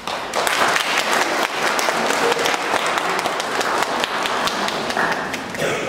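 Audience applause, starting suddenly and going on as dense, steady clapping.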